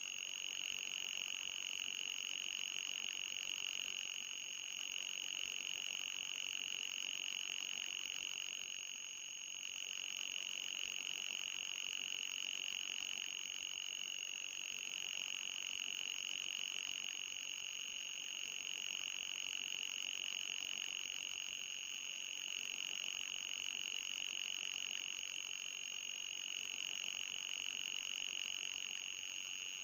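Synthetic anti-mosquito repellent tone: a steady, piercing high-pitched electronic tone with a fainter, higher whistle above it, wavering slightly every few seconds. It is audible and not truly ultrasonic.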